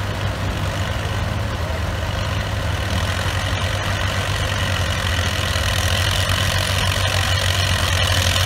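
Vintage tractor engines idling together, a steady low hum that grows slowly louder, with the pair hitched in tandem to a pulling sled waiting to start.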